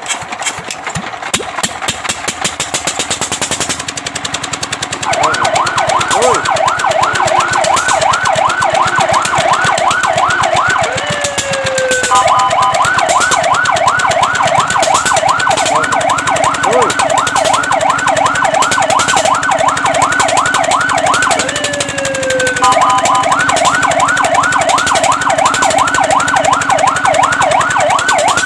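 Fire truck siren that starts about five seconds in over a rattling engine-like noise. It yelps fast and steadily, about three or four sweeps a second, and is twice broken by a brief steady two-note tone before yelping again.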